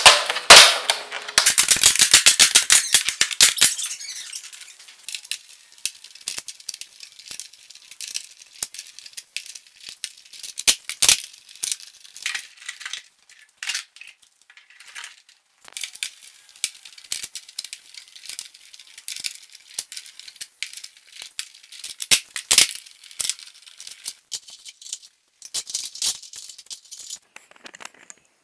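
Irregular clicks and rattles of clamps being handled and set on a wooden canoe's gunwales, with a fast run of rapid clicking about two seconds in, then scattered single clicks and short clusters.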